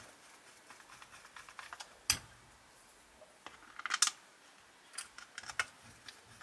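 Plastic and metal parts of a diecast model car being handled and pressed together by hand: scattered light clicks and taps, a sharper knock about two seconds in, and a quick cluster of clicks around four seconds.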